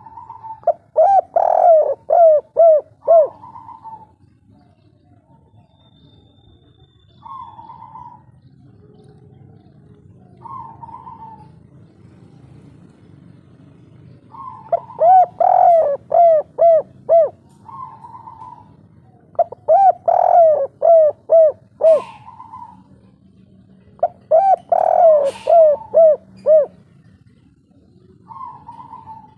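Spotted dove cooing its kuk 3 song. It gives four loud phrases, each a higher opening note followed by a quick run of lower, arched coos. Single short coos come in between.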